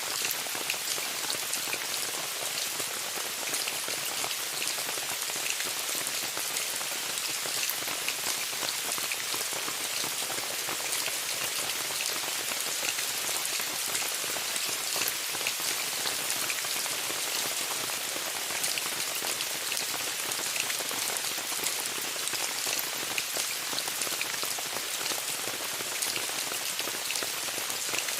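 Steady rain falling on a tent: an even hiss with many small drop taps, unchanging throughout.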